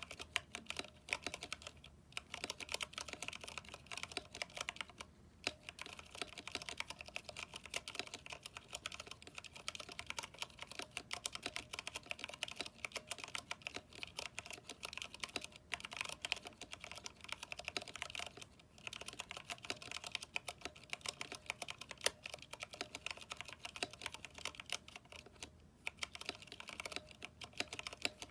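Steady fast typing on a Vortex 10th Anniversary Edition mechanical keyboard with Cherry MX Brown switches and PBT keycaps, a dense run of key clacks broken by a few brief pauses.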